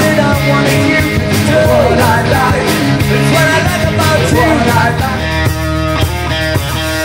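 Live rock band playing electric guitars, bass and drums, loud. About five seconds in the playing changes from a line that bends up and down in pitch to steady repeated chords with regular drum hits.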